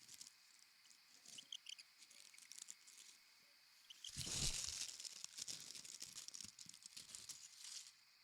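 Foley rustling of dry leaves and grass: light scattered crackles at first, then about four seconds in a louder rushing, crackling rustle that carries on until near the end.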